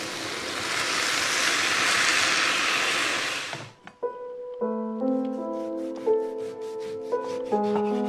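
Sliced onions sizzling and hissing as they are stirred in a hot cast-iron skillet, the frying cutting off suddenly about three and a half seconds in. Gentle background music with soft bell-like notes follows.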